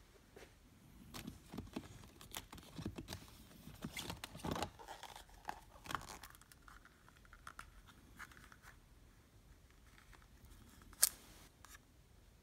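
Paperboard boxes being slid off a packed shelf and handled: irregular scraping, rubbing and light taps of cardboard, busiest in the first half. A single sharp click comes near the end.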